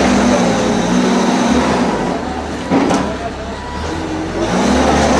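Diesel engine of a demolition machine running steadily under load, with a single sharp knock about three seconds in.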